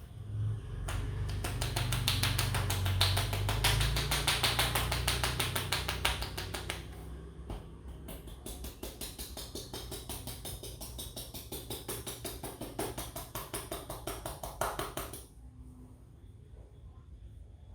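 A barber's hands drumming a fast, even rhythm of slaps on a client during an Indian head massage: the percussive tapping part of the massage. The slaps are louder in the first half and stop suddenly about fifteen seconds in.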